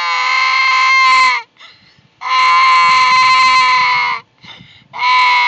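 A young child wailing in long, loud, steady cries, three in a row with short pauses between, each dropping in pitch as it ends.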